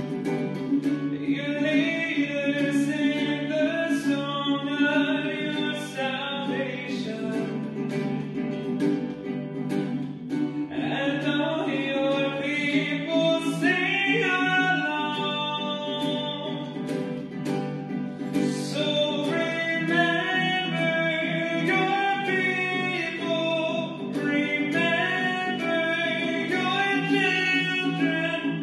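A singer performing a meditative worship song to acoustic guitar accompaniment, the voice carrying a slow melody over steadily played chords.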